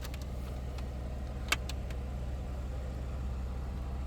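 A steady low engine hum, like a vehicle idling, with a single sharp click about one and a half seconds in.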